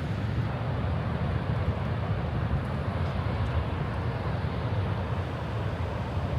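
Wind buffeting the microphone outdoors: a steady low rumble that flickers rapidly, with a softer hiss above it.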